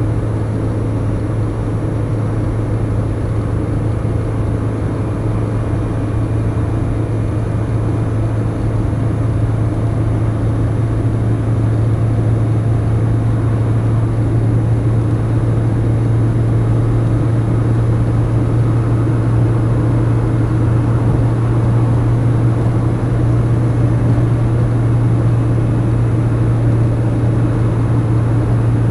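Steady car cabin noise while driving through a motorway tunnel: a constant low engine-and-road drone with tyre rush, growing slightly louder in the second half.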